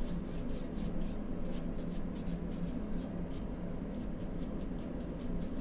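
Big paintbrush scrubbing acrylic paint onto a stretched canvas in short, repeated scratchy strokes, a few a second, over a steady low hum.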